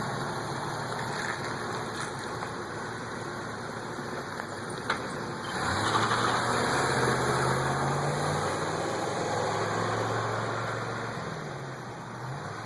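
Freshly rebuilt car engine running at idle. From about six seconds in it runs louder with a steady low hum, then eases back off toward the end. A single click comes a little before that.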